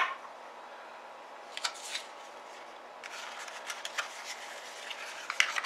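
Sheet of paper rustling and crinkling as it is handled and rolled into a funnel, after a light click of a small plastic cap set down on a table near the start.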